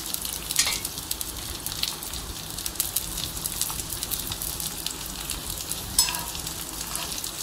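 Sliced red cabbage and bell peppers sizzling as they sauté in hot oil in a miniature iron kadai. A small steel spoon stirs and scrapes the pan, with scattered sharp clicks; the loudest comes about six seconds in.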